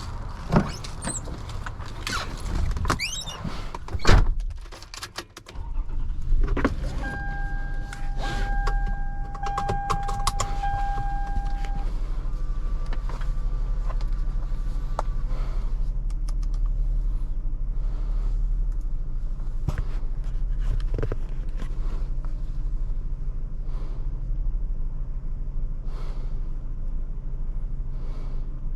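A few clicks and a loud knock, then from about five seconds in a steady machine hum. A high steady whine is heard for several seconds. This is the newly assembled desktop PC running with its fans spinning.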